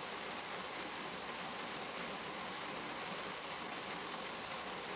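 Steady rain falling on a car's windshield, heard from inside the car.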